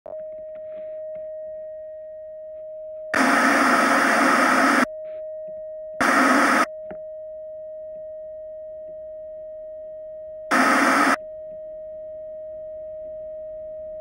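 Television test-pattern tone: one steady mid-pitched beep, interrupted three times by loud bursts of static hiss. The first burst lasts about a second and a half; the other two are shorter.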